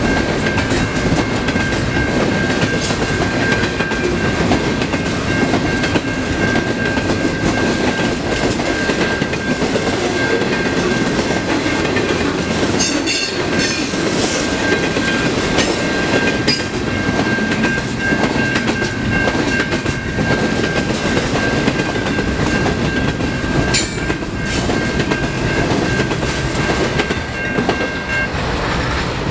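Double-stack intermodal freight cars rolling past over a level crossing, wheels clattering on the rails, with a steady high ringing tone from the crossing warning bell that stops near the end as the last car clears.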